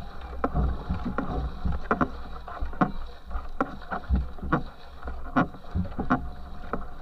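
Water splashing and churning at the stern of a racing canoe under way, with sharp splashes coming irregularly about once or twice a second over a steady low rumble of water on the microphone.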